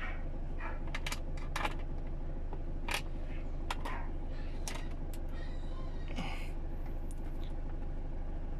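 Scattered light plastic clicks and taps from handling a 12-volt cigarette-lighter double-socket adapter with a USB port, over a steady low hum.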